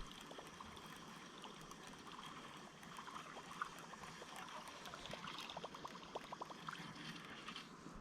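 Faint trickling, gurgling river water, with a few soft clicks now and then.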